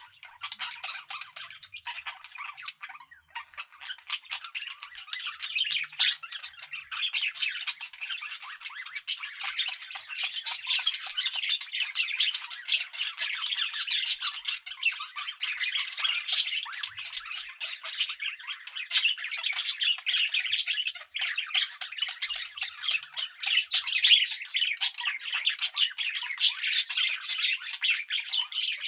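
Budgerigars chattering and chirping continuously, a dense stream of quick, high calls from several birds at once. It is the soft warble of budgies at rest.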